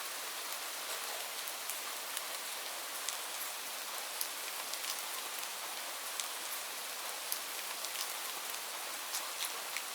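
Steady rain falling, an even hiss with separate drops ticking sharply here and there.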